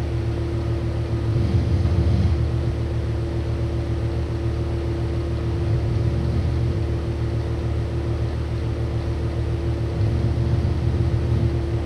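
A steady low mechanical hum with one constant pitched tone over a low rumble.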